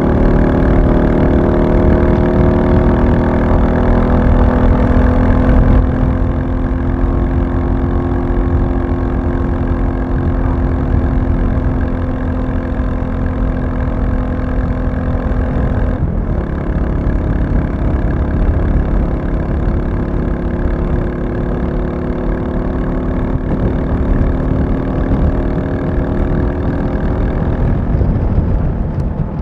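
Royal Enfield Classic 350's single-cylinder engine running under way, its pitch rising over the first six seconds. There are short breaks near six and sixteen seconds, then it settles into steady cruising.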